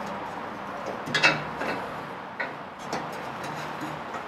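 A polished metal cold air intake tube being manoeuvred into an engine bay by hand: a few light knocks and scrapes as it catches on parts around it, the sharpest just over a second in.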